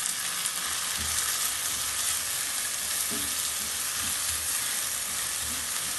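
Freshly added chopped onions sizzling steadily in hot oil in a nonstick pan on a high flame, with a spatula stirring and scraping them a few times.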